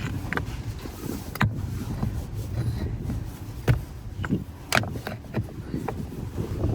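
Irregular sharp knocks and crunches, roughly one or two a second, over a steady low rumble.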